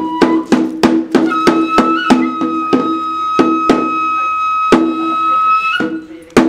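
Kagura festival music: a Japanese bamboo transverse flute (kagura-bue) holds one long high note that steps up about a second in, over drum strokes in an uneven rhythm that grows sparser. Near the end the music breaks off briefly, then a single sharp drum stroke.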